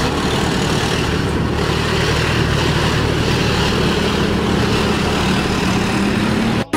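Heavy diesel truck engine labouring up a steep climb under load, a steady low drone mixed with road traffic. It cuts off abruptly near the end.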